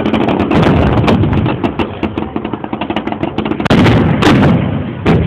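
Fireworks display: a dense run of rapid crackling bangs, with a few heavier booms in the last second and a half.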